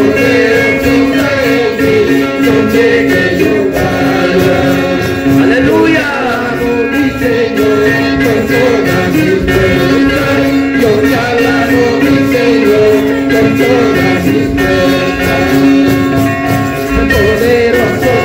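Evangelical song played live on strummed acoustic guitars, with male voices singing the melody.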